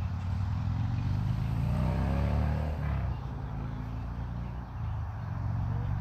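A motor vehicle passing close by, its engine and tyre noise swelling about a second or two in and falling away by about three seconds, over a steady low traffic rumble.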